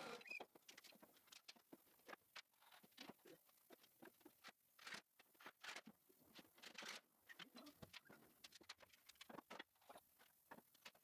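Near silence with faint, irregular clicks and taps scattered throughout.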